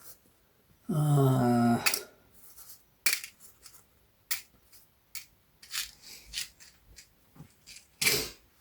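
Small screws and parts clicking and rattling as they are picked through by hand, in scattered sharp ticks at irregular intervals. A short hummed voice sound about a second in is the loudest thing.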